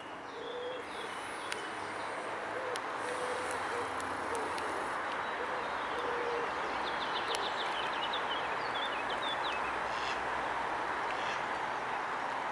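A steady rushing outdoor noise, growing a little louder in the first few seconds. A few short, low hooting calls sound through its first half, and a quick run of high chirping calls comes about eight seconds in.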